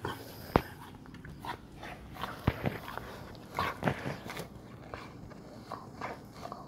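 Bernese mountain dog chewing and mouthing a tennis ball while rolling on a wooden floor: irregular sharp clicks and rustling scuffles, the sharpest click about half a second in and a busy cluster a few seconds in.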